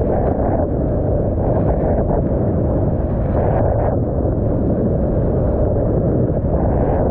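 Strong wind buffeting the microphone of a rider-mounted camera as a kiteboard crosses whitewater: a loud, steady low rumble with the rush of water underneath.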